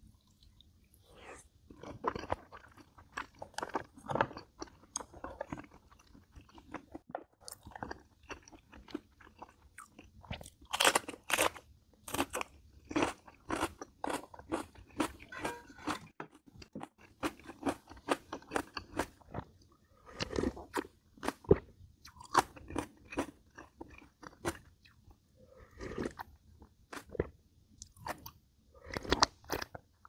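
Mouth eating sounds: crunchy bites and steady chewing of food, with a run of loud crunches about eleven seconds in.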